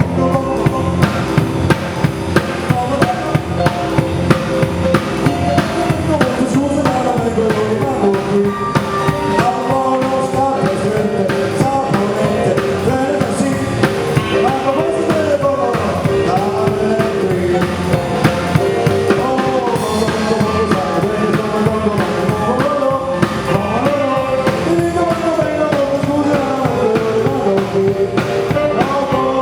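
Band music with a steady drum-kit beat and a melodic line, possibly sung, running throughout.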